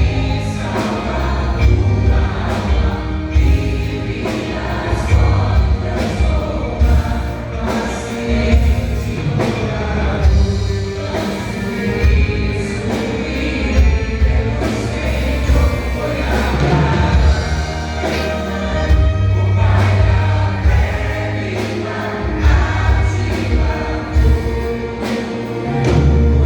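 A vocal group singing a gospel song together over a band, with a steady bass line and regular drum beats.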